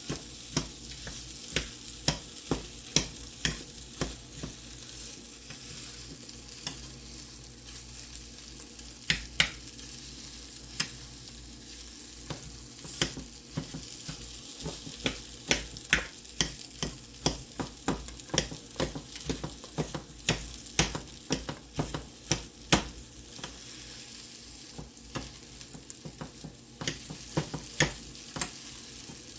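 Food frying and sizzling in a hot pan, with a utensil stirring it and clicking and scraping against the pan about once or twice a second.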